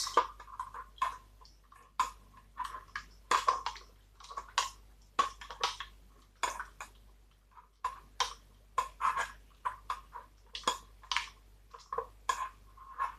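A metal fork scraping and clinking against a bowl in quick, irregular strokes, each with a short ringing note, as leftover peanut butter is scraped out.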